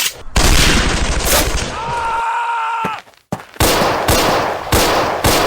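Battle gunfire sound effects: a long burst of rapid machine-gun fire, then after a short break more gunfire with distinct separate shots.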